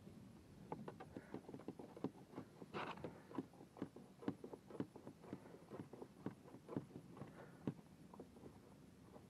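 Light, irregular clicks and knocks of hands working the plastic fittings and a knob on a kayak deck, with a brief scrape about three seconds in.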